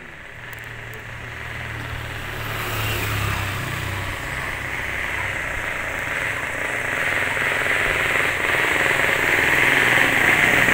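A motor engine running, with a steady low hum under a rushing noise that grows louder through the clip.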